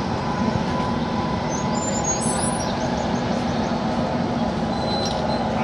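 Steady rumble of a train with a constant low hum and a faint high-pitched whine, unbroken throughout.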